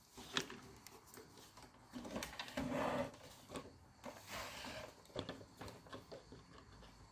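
Faint scattered clicks, small knocks and rustling from a radio-controlled toy car's wheels and plastic parts being handled, with a louder stretch of handling about two to three seconds in.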